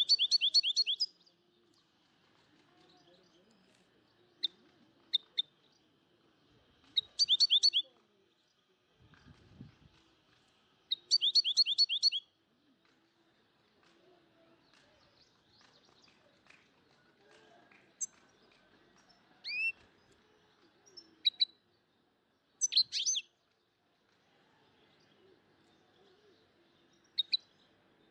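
Bird song: short bursts of rapid high chirps repeated every few seconds, with a few single whistled notes in between, one of them rising.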